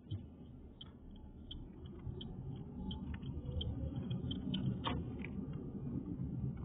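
Car cabin noise while driving: a low rumble of engine and tyres that grows louder after about two seconds, with a regular tick about three times every two seconds and a sharper click near the end.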